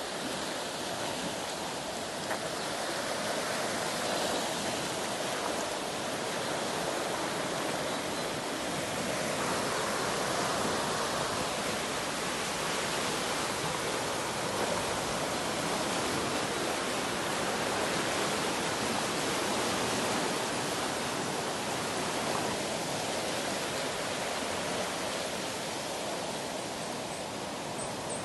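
Muddy floodwater rushing swiftly through trees and undergrowth: a steady, unbroken rush of water.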